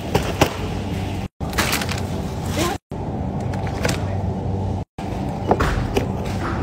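Shopping cart rolling and rattling, with sharp clicks of plastic food containers being handled. The sound cuts out completely for an instant three times.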